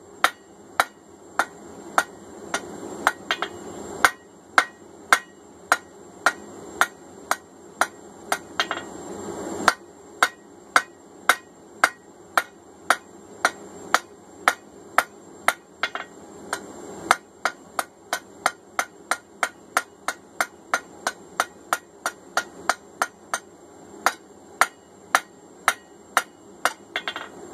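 Hand hammer striking a hot steel bar on an anvil: a steady run of sharp metallic blows, about two a second, with a few brief pauses. The blacksmith is forging the end of a hammer handle into an oval.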